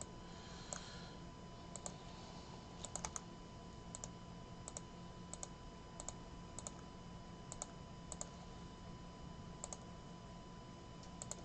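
Faint, irregular clicks from a computer keyboard and mouse being worked, about fifteen in all, some in quick pairs, over a faint steady hum.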